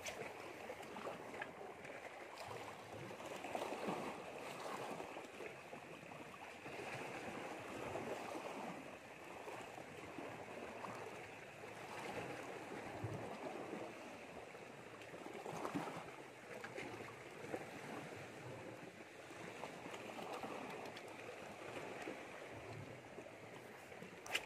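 Shallow seawater washing and lapping against a rocky reef shore: a steady wash that swells and eases every few seconds.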